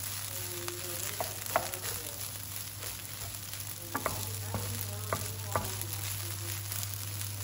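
Rice frying in oil in a non-stick frying pan, sizzling steadily while a wooden spatula stirs it. The spatula knocks and scrapes against the pan now and then, loudest about a second and a half in and several times between four and six seconds in.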